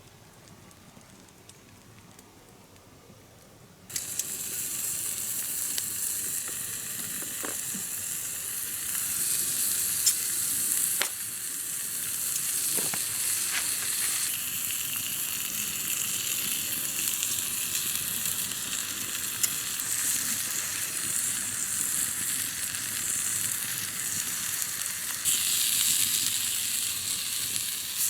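Food sizzling in a hot frying pan, with occasional pops and crackles. The sizzle starts abruptly about four seconds in and then holds steady.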